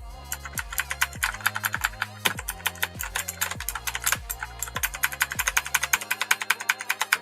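Fast, continuous typing on the Gamdias Hermes RGB mechanical keyboard, its clicky blue switches giving many sharp clicks a second.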